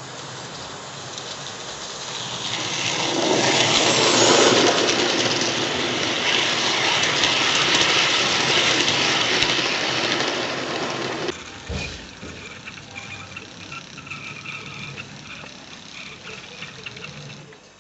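00 gauge model train, a Stanier 8F 2-8-0 hauling car-carrier wagons, running on the track: the rushing sound of its wheels and motor grows louder from about two seconds in as it comes close, then drops suddenly about eleven seconds in to a fainter running sound with a thin high whine.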